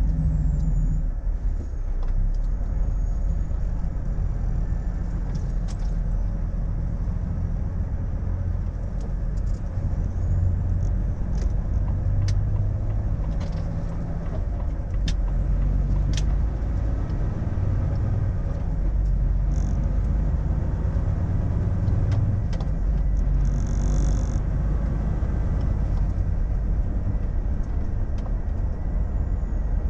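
Volvo FH truck's engine and road rumble, heard inside the cab while driving. The low engine note shifts up and down as speed changes.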